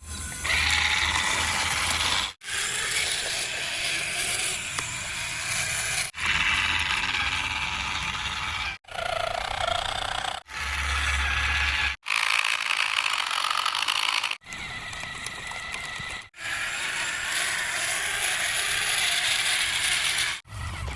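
Small geared motors of plastic RC toy vehicles whirring and clattering, heard in a string of short clips that cut off abruptly every two to four seconds.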